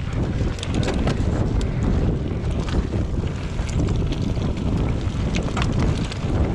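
Wind rumbling on the microphone of an electric mountain bike ridden down a rough trail, with frequent sharp clicks and knocks from the bike rattling over the ground.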